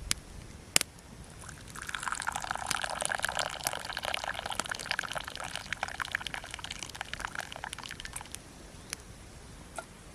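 Liquid being poured for about six seconds, starting a second and a half in and stopping near the end.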